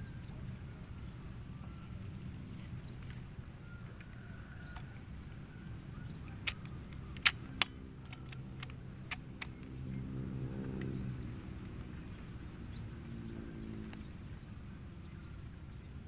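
Rice-field ambience: a steady high-pitched drone of insects, with a few sharp clicks about halfway through and a low engine-like hum rising and fading around two-thirds of the way in.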